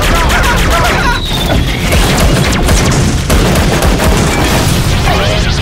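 Cartoon action sound effects: repeated booms and crashing impacts over dramatic music.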